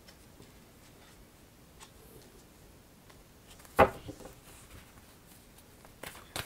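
Tarot cards being handled. There is one sharp tap or snap of the cards about four seconds in, a few soft card ticks after it, and two more quick taps near the end.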